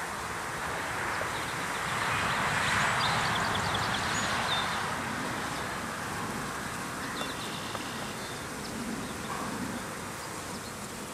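Buzzing of a swarm of honeybees flying around an opened package of bees that has been disturbed. The buzzing swells a couple of seconds in, then eases off.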